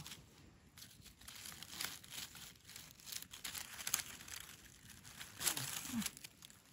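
Dry leaf litter crackling and rustling under a hand as a white Amanita mushroom is dug out of the forest floor, in scattered short crackles, loudest about five and a half seconds in.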